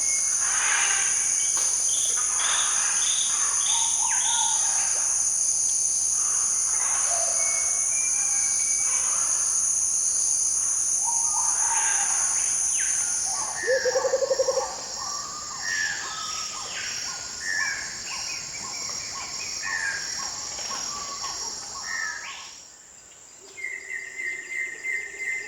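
Forest ambience: many birds calling and chirping over a steady high-pitched insect drone. A short, loud, low pulsing trill comes about halfway through. The insect drone stops near the end, and a rapid trilling call starts after a brief lull.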